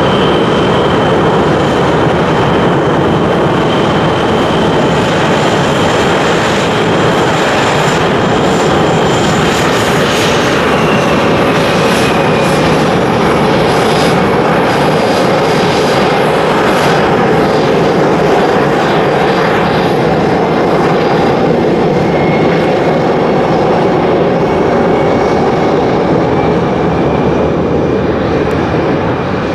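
Sikorsky Seahawk helicopter flying past low, its twin turboshaft engines whining over the steady rush of the rotor. The whine drops in pitch about ten to thirteen seconds in as the helicopter goes by.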